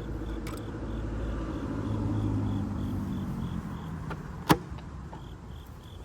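A motor vehicle's engine running, its pitch rising and then falling, followed by a single sharp knock about four and a half seconds in.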